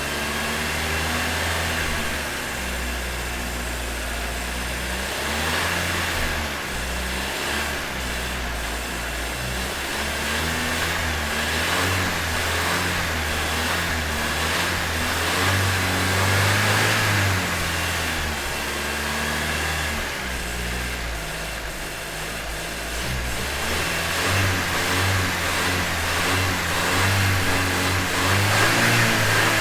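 2026 Volkswagen Jetta's engine running and accelerating, its pitch stepping up and down several times, growing louder in the middle and again near the end.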